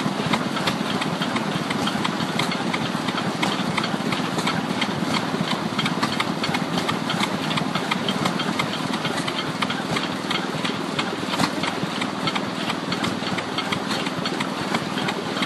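Antique stationary gas engine running steadily with a rapid, regular clatter as it drives belt-and-pulley machinery.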